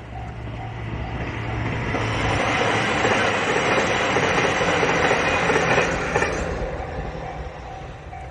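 A diesel train passes over a level crossing: the rush of its wheels on the rail and its engine builds, stays loud for about four seconds, then fades. The crossing's alarm bell rings in even pulses before and after, drowned out while the train goes by.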